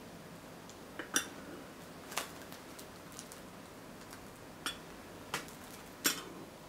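Wooden spoon clinking against small glass bowls while cubes of agar jelly are scooped out: several separate sharp clinks, a second or so apart.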